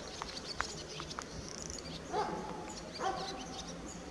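Quiet outdoor ambience: a distant animal calls twice, about two and three seconds in, while small birds chirp high and thin.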